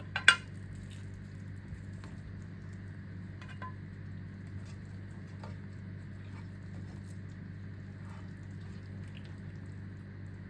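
A sharp metallic clink against the pan just after the start, then a pan of fish in broth simmering with faint scattered ticks and pops over a steady low hum.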